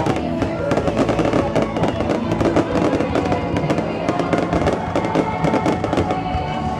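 Fireworks bursting and crackling in quick, irregular succession, with music playing underneath.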